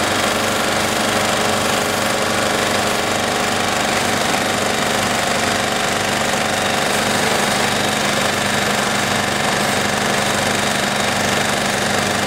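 A fire engine's motor running steadily to drive its pump, with the steady hiss of a water jet sprayed from a hose onto a burning car.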